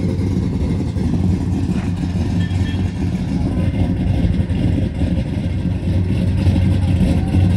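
Classic car engine running at low speed with a steady, deep rumble as the car rolls away.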